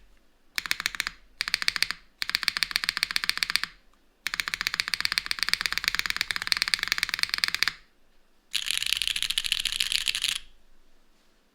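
Fast typing on a Cloudnine R2 mechanical keyboard with Cherry MX2A Black linear switches, a full aluminium plate and no foam. It comes as five quick runs of keystrokes broken by short pauses, the longest lasting about three and a half seconds, and it stops about a second before the end.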